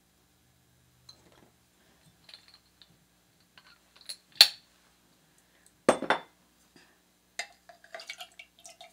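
Glass bottle, jigger and metal cup clinking and being set down on a countertop while bar ingredients are measured: scattered small clicks, a sharp clink about four seconds in, a louder knock about six seconds in, and a run of small ringing clinks near the end.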